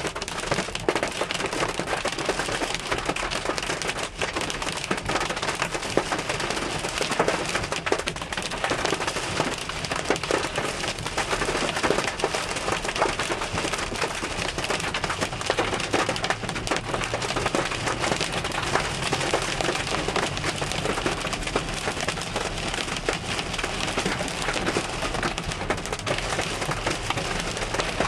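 Hailstones drumming on a car's roof and windscreen, heard from inside the car: a dense, unbroken clatter of countless small hits.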